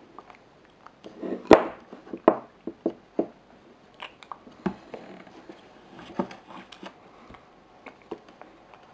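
Irregular clicks and knocks of a metal spoon against a ceramic bowl as a baby is spoon-fed, with soft mouth sounds from the baby. The loudest knock comes about a second and a half in, with a scatter of lighter taps over the next few seconds.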